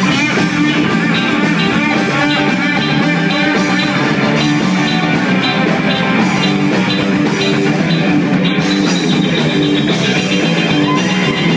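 Live band playing a loud boogie number on stage piano, electric guitar, bass guitar and drums.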